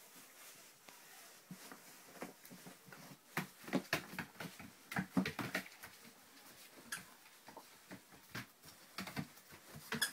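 A puppy scrambling and playing, its claws clicking and pattering on a tiled floor in an irregular run of quick taps, busiest a few seconds in.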